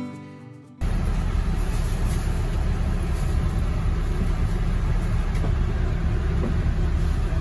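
Steady low rumble of a coach bus heard from inside its passenger cabin, engine drone with a hiss of running noise above it, starting about a second in as guitar music fades out.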